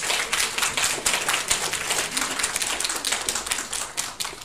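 Audience applauding: many people clapping in a dense patter that thins out near the end.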